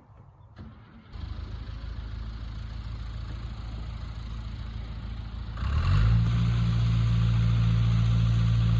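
A motor vehicle's engine running steadily, then revving up to a louder, steady higher speed about halfway through.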